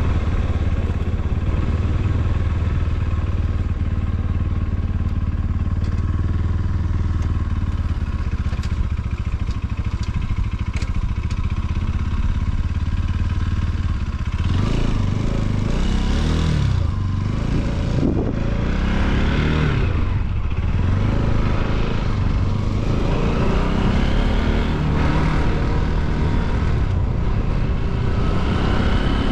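Bajaj Pulsar NS200's single-cylinder engine running under way. For the first half it holds a steady note, then from about halfway the revs rise and fall again and again.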